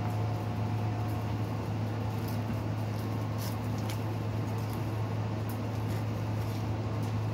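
A steady low hum fills the background, with a few faint, scattered crackles of dry red onion skin being peeled off by hand.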